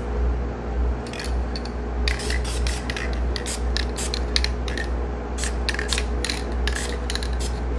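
Short bursts from an aerosol spray paint can, dusting light tan paint through mesh netting to lay a honeycomb camo pattern, over a steady low hum.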